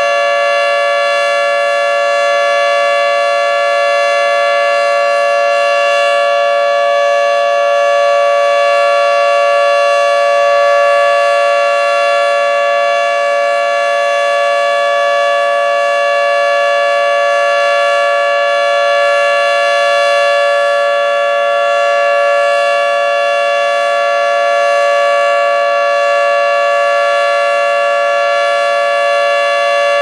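Federal Signal 3T22 three-tone outdoor warning siren sounding its steady Alert signal for a test: a loud, unbroken chord of several tones held at one pitch, with gentle swells in loudness.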